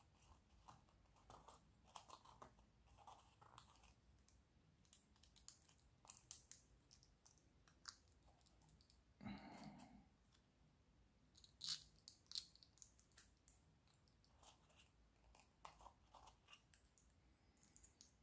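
Faint, irregular clicks and light rustling of thin 3D-printed plastic puzzle pieces being handled and pushed together over paper, with a short, duller rustle about nine seconds in.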